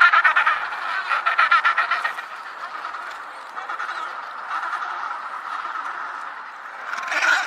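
Penguins calling. Rapid pulsed calls fill the first two seconds, then fade to a softer steady chatter, and one more loud call comes near the end.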